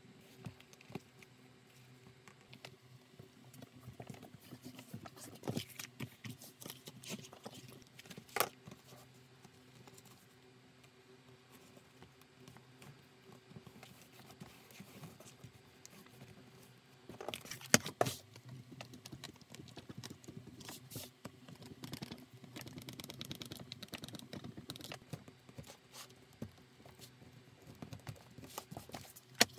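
Hands handling a leather bag panel with a sewn-in zipper on a cutting mat: soft rubbing and rustling with scattered light clicks and taps, and a short louder clatter about eighteen seconds in.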